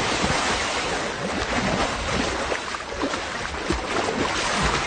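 Floodwater splashing and churning in a steady rush as a car drives through a deeply flooded street.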